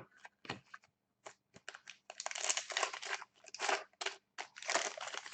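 Hockey card pack being handled and opened: a wrapper crinkling and tearing among short rustles and clicks of cards, with the densest crinkling from about two seconds in.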